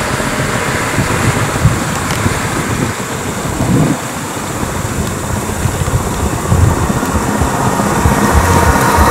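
Road vehicle engine running, with wind buffeting the microphone.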